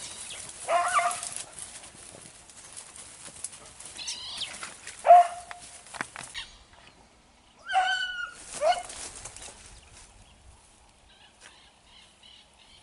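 Beagles barking as they hunt rabbit through brush, with about five short yelping barks in the first nine seconds and brush rustling underneath.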